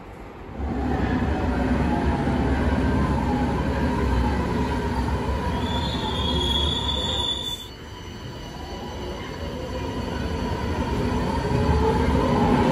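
Milan metro train running past the platform with a steady rumble and a high wheel squeal for a couple of seconds. Then a train pulls away from the platform, its rumble growing louder and its motor whine rising in pitch as it accelerates.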